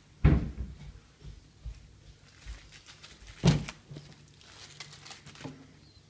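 Objects being handled on a worktop: two sharp knocks about three seconds apart, with small clicks and a faint crinkling rustle near the end.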